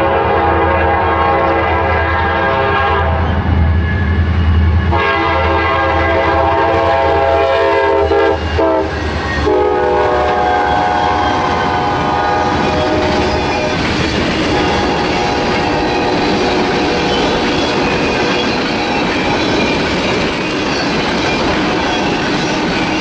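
A diesel freight locomotive's air horn sounds in long blasts over a deep engine rumble, with short breaks about five and nine seconds in. About halfway through the horn stops, and a long string of refrigerated boxcars rolls past with steady wheel clatter on the rails.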